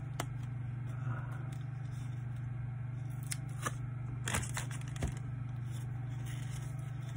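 Hockey trading cards being handled and shuffled: about half a dozen short scrapes and clicks, scattered over a steady low hum.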